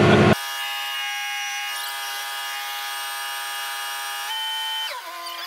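The crane's engine noise sped up into a steady, high-pitched whine of several tones. It steps up in pitch about four seconds in and then glides back down near the end.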